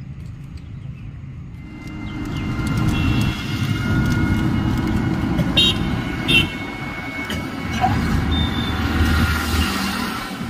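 Road traffic rumble that turns into the louder running noise of a moving vehicle heard from inside, about two seconds in. Two short horn toots come through about halfway.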